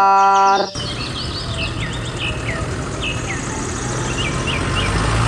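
Birds chirping, many short falling chirps, over an open-air noise haze and a steady low engine rumble from a large farm tractor idling.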